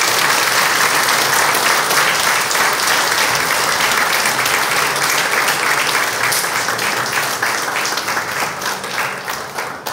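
Congregation applauding, a steady mass of clapping that thins out and dies away near the end.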